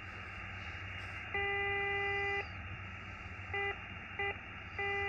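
Xiegu X6100 HF transceiver's receiver hiss with a steady, low buzzy tone from a birdie, a spurious carrier the radio makes itself. The tone comes in about a second in, drops out, blips twice, and comes back near the end as the dial is tuned across it.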